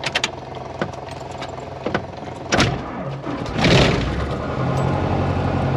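Socata Tobago light aircraft's single piston engine running, heard from inside the cockpit: a steady low drone with a few clicks, a sharp thump about two and a half seconds in and a loud rush about a second later, after which the engine settles into a louder, steady run.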